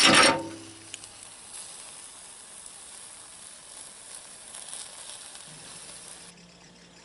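A loud clatter right at the start, then a newly lit fire in a wood stove hissing and crackling steadily; the sound cuts off sharply near the end.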